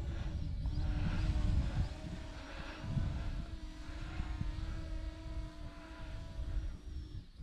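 Small electric RC aircraft propellers humming steadily, the pitch wavering slightly, over a low uneven rumble.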